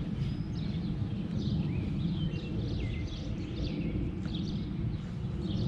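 Small birds chirping repeatedly over a steady low rumble of outdoor background noise.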